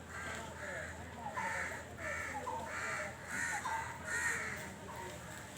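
Crows cawing repeatedly, a run of about seven harsh caws with the loudest near the end, over many faint short chirps.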